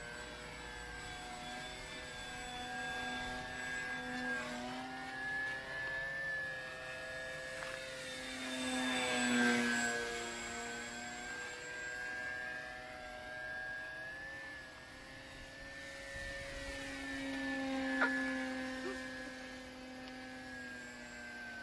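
Radio-controlled model Avro Baby biplane's motor and propeller in flight: a steady whine whose pitch shifts up and down as the plane manoeuvres, loudest about halfway through as it passes close. A short sharp click near the end.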